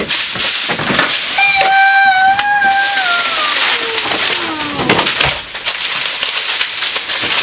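Loud crinkling and rustling of plastic grocery bags being unpacked. Partway through, a long drawn-out cry holds one pitch, then slides down.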